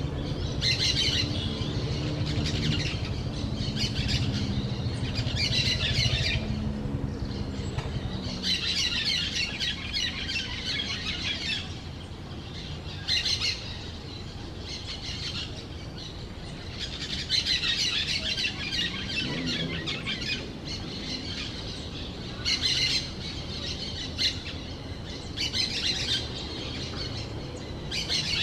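Orange-chinned parakeets chattering in repeated bursts of shrill, rapid squawks about a second long each, with short pauses between.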